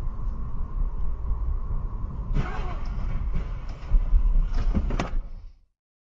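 Car crash heard from inside a moving car: steady road and engine rumble, then a burst of noise about two and a half seconds in as a car hits a roadside utility pole, loudest about four seconds in, with more sharp impacts about a second later. The sound cuts off suddenly near the end.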